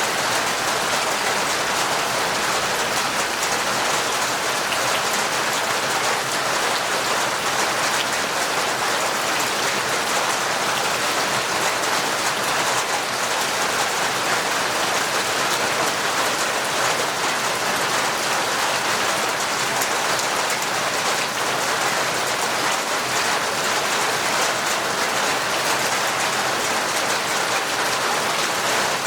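Heavy, torrential rain falling steadily, a dense even hiss of drops that doesn't change.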